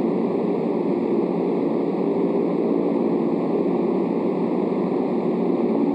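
Steady low rushing background noise picked up on an open golf course, even throughout with no distinct events.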